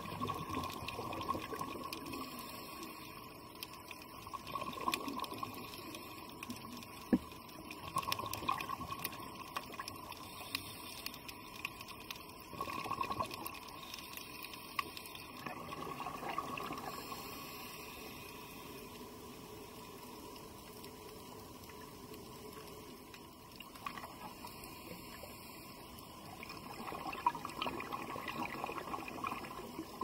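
Underwater ambience of a diver's exhaled air bubbling out in rushing surges every few seconds over a steady water hiss, with a few sharp clicks; the surges let up for a while in the second half, then return near the end.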